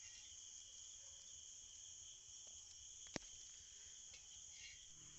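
Faint, steady chirring of crickets or similar insects, with a single sharp click about three seconds in.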